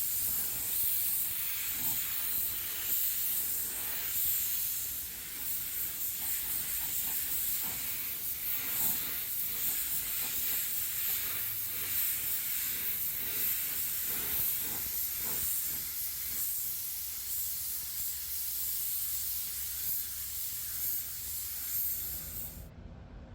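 Paint spray gun spraying clear coat: a steady hiss of air and atomised paint that cuts off abruptly near the end.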